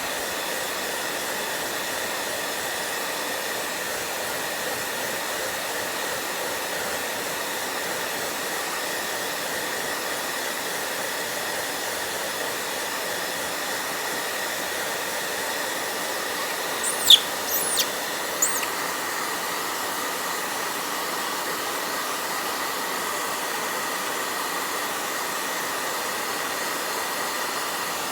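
Electric hair dryer blowing steadily, with its even rushing noise and a faint whine. About two-thirds of the way through come a few short, high-pitched squeaks.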